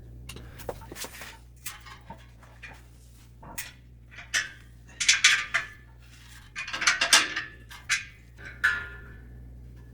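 Metal tools and small metal parts clinking, scraping and ringing in scattered strokes as an air compressor's check valve is taken apart, with the loudest scrapes about halfway through and near the end.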